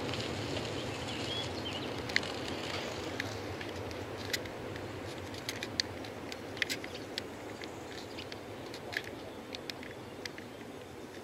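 A bicycle rolling past, with scattered sharp clicks and rattles over a steady outdoor rumble that slowly fades.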